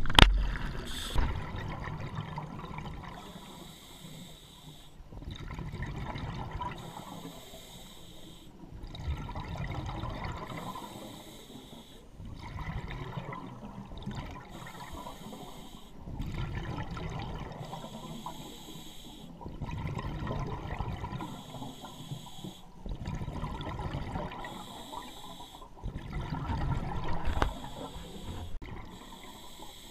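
Scuba diver breathing through a regulator underwater: a hiss on each inhale alternating with the low bubbling of exhaled air, about seven slow breaths. A sharp knock right at the start is the loudest sound.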